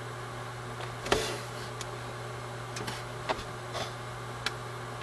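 Quiet room tone with a steady low electrical hum, broken by a handful of faint clicks and one soft thump about a second in.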